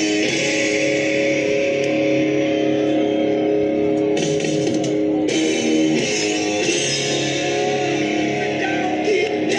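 Rock music with electric guitar playing held, ringing chords and a steady hiss of cymbals above.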